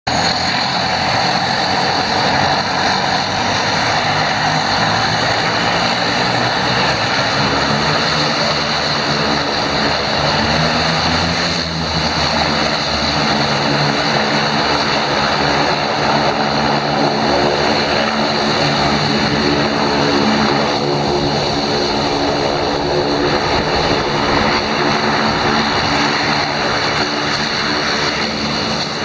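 A de Havilland Canada Otter floatplane's engine and propeller running steadily while it taxis away across the water on its floats.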